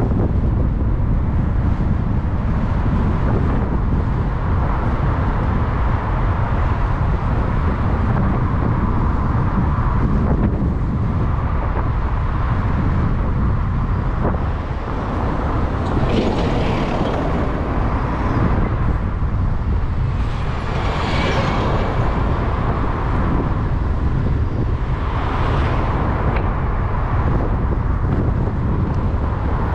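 Steady road rumble and wind noise on the microphone of a vehicle driving along city streets, with traffic passing; brief louder swells come about sixteen, twenty-one and twenty-five seconds in.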